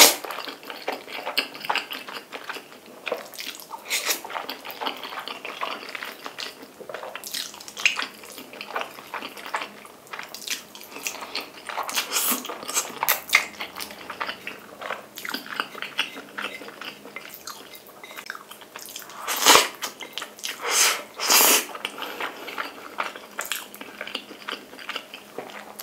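Jjapagetti black-bean noodles being slurped and chewed close to the microphone: a run of wet chewing smacks and clicks, with a loud slurp at the start and a few louder slurps about twenty seconds in.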